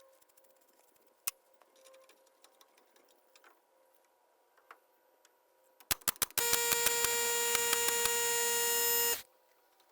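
A few sharp clicks, then a handheld electric power tool's motor runs at a steady pitch for about three seconds and stops suddenly.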